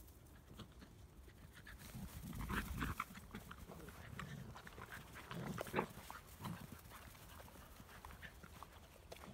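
Labrador puppies play-fighting, with short growls and yips, over scuffing and rustling on dry grass.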